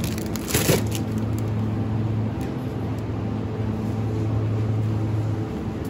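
Steady low hum of supermarket refrigerated cabinets under the noise of a shopping trolley rolling, with a short crinkle and knock about half a second in as a plastic-wrapped yogurt multipack is dropped into the wire trolley.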